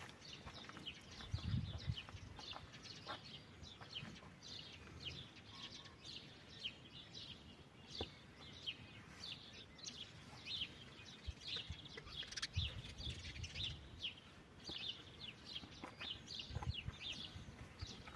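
Small birds chirping and twittering continuously, many short high chirps, with a few soft low thumps now and then.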